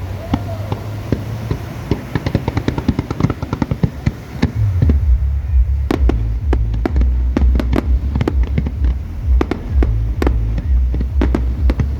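Fireworks display: a dense run of rapid crackling for the first four seconds or so. Then come separate sharp bangs of shells bursting, a few a second, over a deep rumble.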